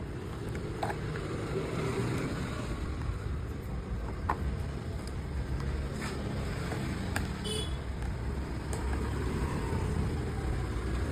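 Steady low rumble of motor vehicles, with a few sharp clicks and taps scattered through it from hand work on the scooter's plastic panels and meter.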